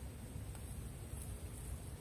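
Faint outdoor background: a low, uneven rumble of wind on the microphone with a faint high hiss, and no distinct sounds.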